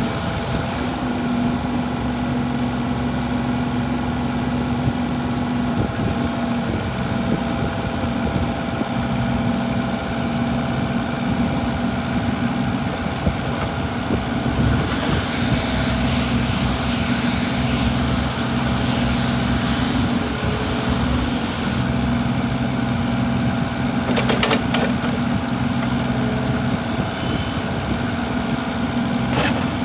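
Kobelco SK25SR-6E mini excavator's diesel engine running steadily at idle, with a hissing rush for several seconds in the middle and a couple of short clicks near the end.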